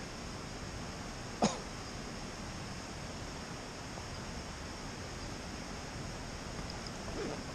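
One short cough about a second and a half in, over a steady low outdoor hiss.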